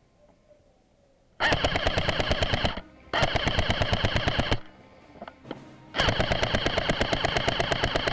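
Airsoft electric rifle firing three full-auto bursts of rapid, evenly spaced shots, each about one and a half to two seconds long, close and loud.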